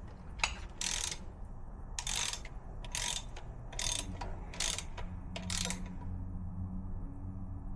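Ratchet wrench being worked in short strokes, about one rasping burst a second, six in all, then stopping about six seconds in.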